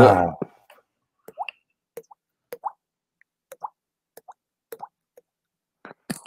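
Finger-in-cheek mouth pops: a string of about a dozen short plops, roughly two a second, each at a slightly different pitch.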